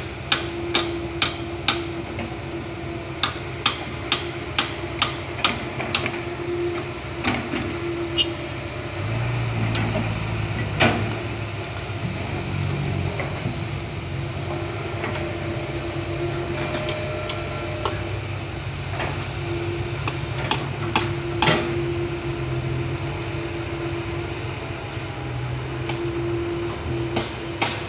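Komatsu PC160 hydraulic excavator working: its diesel engine runs under a steady hydraulic whine, with a run of sharp, regular metallic clicks for the first few seconds and again near the end. About nine seconds in, the engine note deepens and grows louder as it takes on load.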